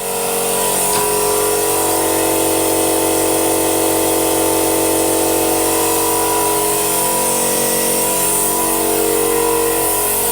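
Vacuum brake-bleeding machine running steadily with a constant hum and a high hiss, drawing old brake fluid out through an open bleed nipple.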